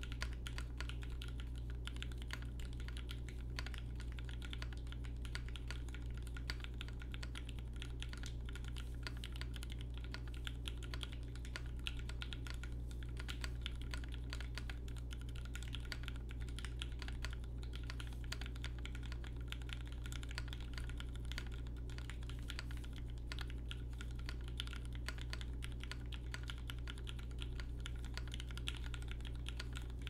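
Continuous typing on a Think 6.5 v2 mechanical keyboard with an FR4 plate, lubed Gateron Ink linear switches, Durock screw-in stabilizers and GMK ABS keycaps. It makes a dense, steady stream of keystroke clacks.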